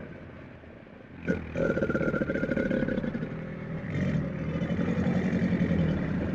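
A large animal's low, rough, rapidly pulsing call, quieter for the first second, then loud after a short sharp sound about a second in.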